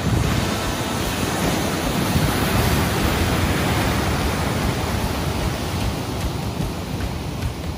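Ocean surf: a wave breaking and its whitewater rushing in a steady wash, louder through the middle and easing near the end.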